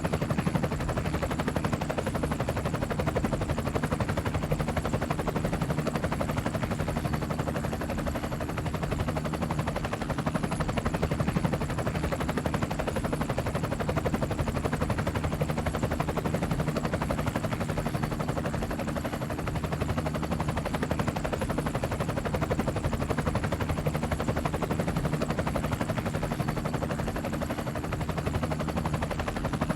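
Helicopter in flight, its rotor blades making a steady, rapid chopping over a low steady drone.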